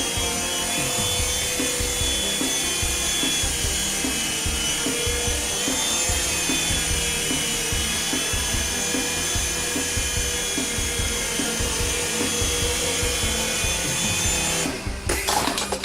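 F101 mini RC helicopter's small electric motors and rotors whirring steadily in flight, a high whine over a rough rumble. The whine cuts off near the end, followed by a few knocks.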